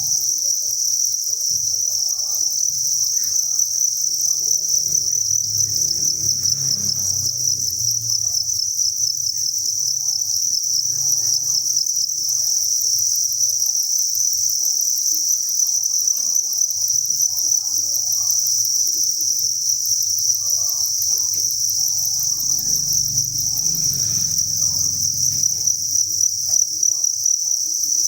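Dense chorus of many farmed crickets chirping together: a continuous, high-pitched, finely pulsing trill that never lets up.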